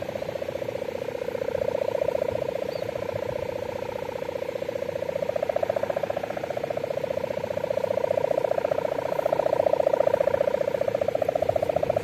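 A kite's sendaren hummer, tuned to the 'bulldozer' sound, droning on one buzzing, rapidly pulsing note that swells and fades in loudness, loudest near the end.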